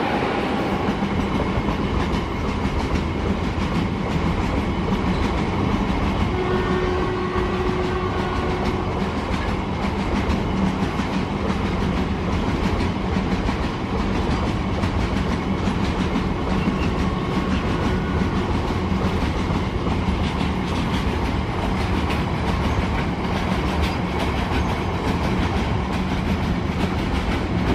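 Long freight train of open-top steel wagons running past at speed: a steady, loud rumble and clatter of wheels over the rail joints. Brief ringing tones rise above it from about six to nine seconds in.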